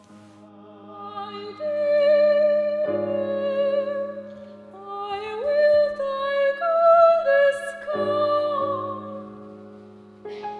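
Slow vocal music: several voices holding long sung notes with vibrato over a steady low drone, the chord shifting every second or two.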